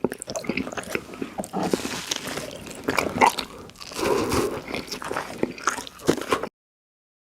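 Crunchy biting and chewing of a hard edible treat shaped like a bar of soap, in quick irregular crunches that cut off suddenly near the end.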